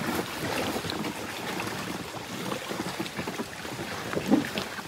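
Water splashing and churning as a large hooked fish thrashes while it is hauled out, with scattered small knocks and rustles and a short louder thump near the end.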